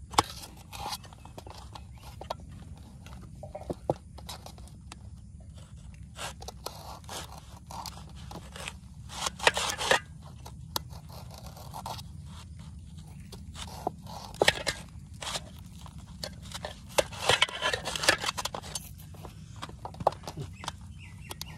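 Small knife cutting and trimming raw green banana against a stainless steel plate: irregular clicks and scrapes of the blade, in short clusters, over a steady low rumble.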